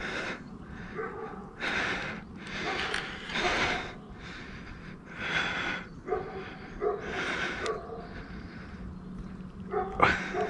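A person breathing heavily close to the microphone, in irregular breaths about every one to two seconds.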